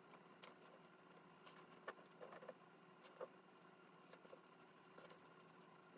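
Near silence: faint room tone with a steady low hum, broken by scattered faint small clicks and taps from hand work on a model railway track section.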